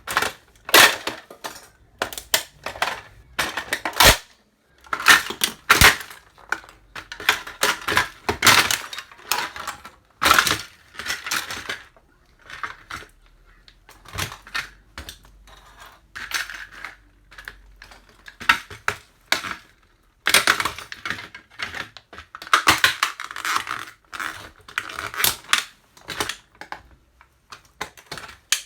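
Plastic toy truck being crushed under boots: irregular bursts of cracking, snapping and clattering plastic, with short pauses between bouts.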